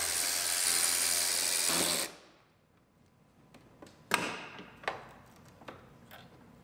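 A cordless power tool runs steadily to back out the wheel-liner fasteners and stops about two seconds in. A few light clicks and a knock follow as parts are handled.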